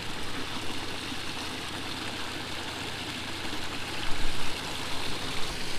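Creek water splashing over a small waterfall, a steady rushing.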